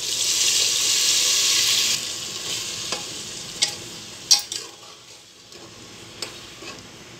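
Water poured into hot fried masala in a pressure cooker, hissing and sizzling loudly for about two seconds. The sizzle then dies down as a metal ladle stirs the curry, with a few sharp knocks and scrapes against the pot.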